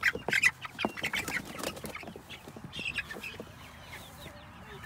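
Flock of young Cornish cross meat chicks peeping, many short high cheeps overlapping. Handling knocks and rustles come with them, busiest in the first couple of seconds as the birds are lifted from the tub.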